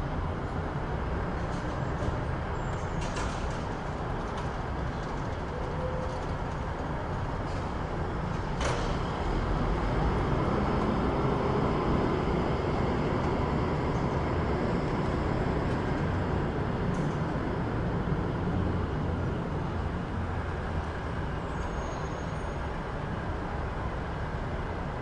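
City street ambience: a steady rumble of traffic, swelling a little for several seconds after a sharp click about a third of the way in.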